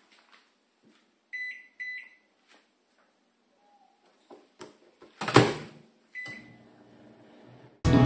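Philco microwave oven being set and started: two short beeps as the time is keyed in, a loud knock of the door shutting about five seconds in, then another beep and the low steady hum of the oven running.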